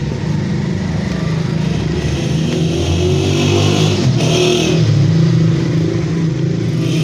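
A motor vehicle engine running steadily, its pitch rising and shifting a little around the middle.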